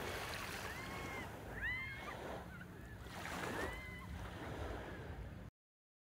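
Small waves washing in over sand at the water's edge, swelling twice, with short, arched bird chirps over it and a low wind rumble on the microphone. It cuts off abruptly near the end.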